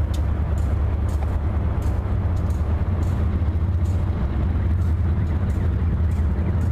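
CSX GE diesel-electric freight locomotives running as a stack train passes on an elevated bridge: a loud, steady low engine drone with scattered light clicks.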